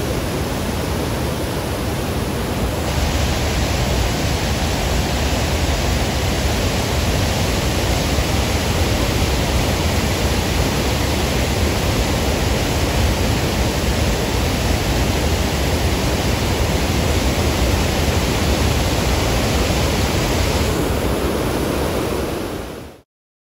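A river in flood after heavy rain rushes over rocky rapids below a dam weir: a loud, steady rush of churning water. It grows hissier for most of the stretch and cuts off suddenly near the end.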